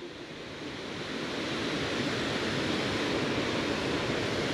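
Steady rushing noise of a waterfall pouring into a pool, growing a little louder over the first two seconds and then holding even.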